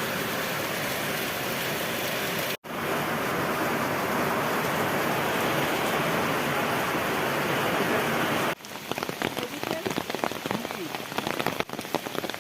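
Steady, dense hiss of heavy rain, cutting out for an instant about two and a half seconds in. About eight and a half seconds in it changes to quieter, uneven rain patter in which separate drops can be heard.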